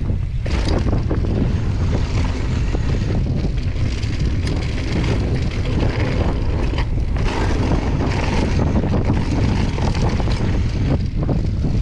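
Mountain bike descending a dry dirt singletrack at speed: wind rushing over the camera microphone on top of the rumble of the tyres on the dirt, with scattered small clicks and rattles from the bike.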